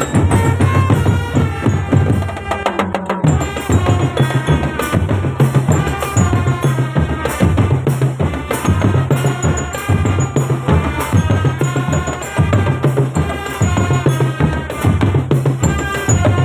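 Marching drum band playing: bass drums and snare drums keep a steady beat under a melody, with a fast drum roll about three seconds in.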